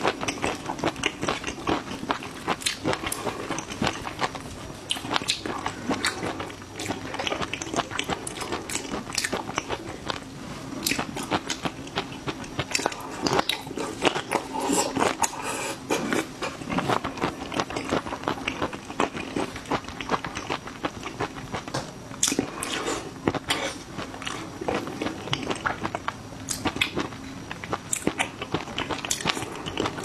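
Close-miked eating: a person biting into and chewing crunchy raw garlic cloves and shrimp coated in chili-oil sauce, with many sharp, irregular crunches throughout.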